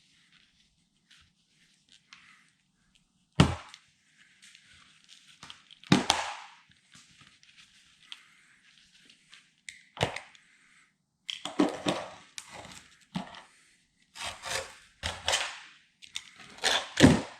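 Sharp knocks and cracks from hand work on the rusty bodywork of a VW T2 bus. A few single knocks come a few seconds apart, then a rougher run of knocking and scraping starts after about ten seconds, with the loudest knock near the end.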